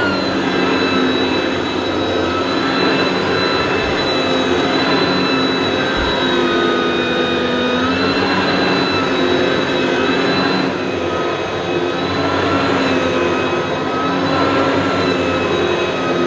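Kärcher Ranger upright vacuum cleaner (built by Sebo) running, its impeller motor giving a steady whine over a rushing airflow. The pitch dips and recovers slightly a few times.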